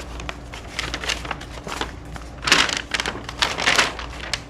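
Paper rustling and crinkling as a folded instruction sheet is handled and opened out, with a louder stretch of crinkling in the second half.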